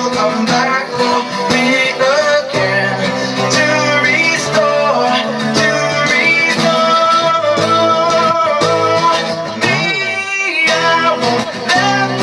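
Band music led by guitars, with a voice singing over strummed chords.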